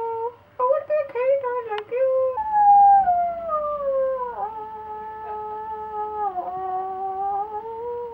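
A person's voice sung and hooted through a cardboard wrapping-paper tube, sounding hollow like a wind instrument: short wavering notes in the first two seconds, then one long tone that slides slowly down, steps lower about six seconds in, and holds.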